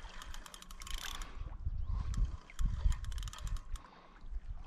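Carp fishing reel ratcheting in rapid runs of fine clicks while a hooked carp is played in toward the net, with a low rumble underneath.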